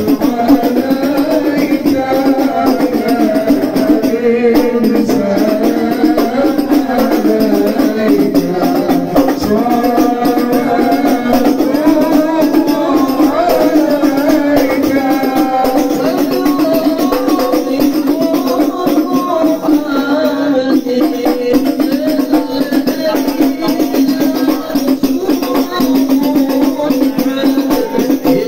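Male voices singing sholawat together in unison, over a fast steady rattle of jingled frame drums (rebana) and other hand percussion.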